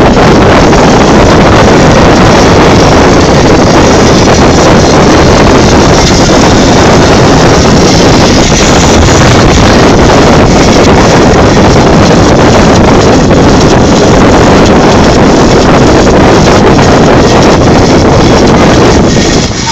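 Loud, steady rush of wind on the microphone over the drone of a moving motorboat and the sea.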